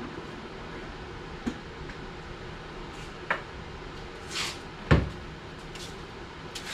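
A few separate clicks and knocks from pressure washer parts being handled and set down, with a short rustle and then the loudest knock, a dull thud, about five seconds in.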